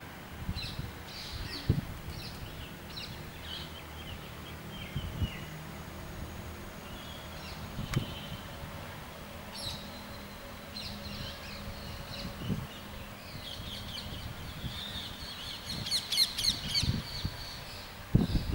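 Parrots calling in a flock, short shrill squawks repeated on and off and coming thick and overlapping near the end, over a low rumble with a few soft thumps.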